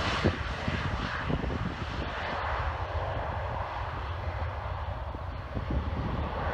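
Jet engines of a Boeing 737-400 freighter during its landing rollout, a steady, broad rushing noise, with wind buffeting the microphone underneath.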